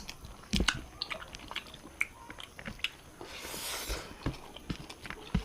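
People chewing food at close range: scattered short, sharp mouth clicks, with a brief rustle about three and a half seconds in.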